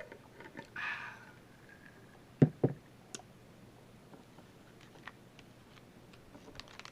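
Baseball cards and packs being handled: light clicks and taps as cards are shuffled, a brief rustle about a second in, and two sharper knocks a little after two seconds.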